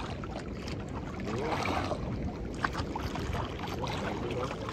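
Wind buffeting the microphone and small waves lapping against a small outrigger canoe, a steady low rumble with a few light knocks.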